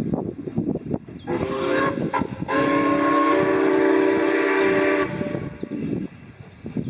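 Steam locomotive RX 207's whistle, sounding several steady tones together: a short toot, then a long blast of about two and a half seconds.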